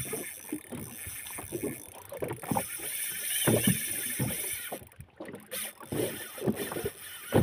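Irregular knocks and water slaps on a small boat's hull, with wind. Over this, a spinning reel's drag pays out line to a big tuna, a high hiss loudest from about two and a half to four and a half seconds in; the drag is running hot under the long run.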